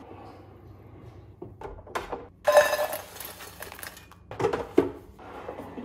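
Cooked fries tipped from an air fryer basket into a stainless steel bowl: one loud clatter about two and a half seconds in, with the metal bowl ringing. Lighter clicks come before it and a couple of knocks follow.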